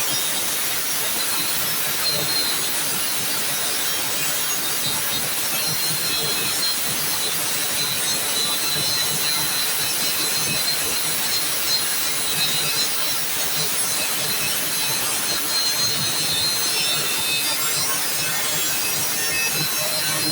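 Angle grinder with a grinding disc running steadily against a welded metal joint, grinding the weld down smooth, with a faint high whine over the grinding hiss.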